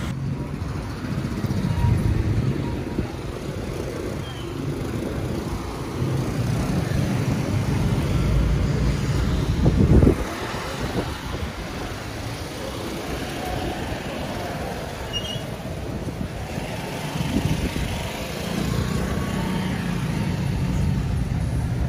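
Street traffic: motor scooters and cars passing close by, engines running. A louder low rumble swells about halfway through.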